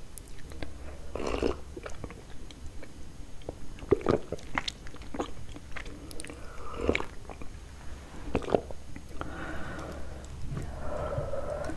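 Close-miked mouth sounds of sipping and swallowing tea from a glass cup, with small wet clicks of lips and throat. Near the end the glass cup is set back down on its saucer.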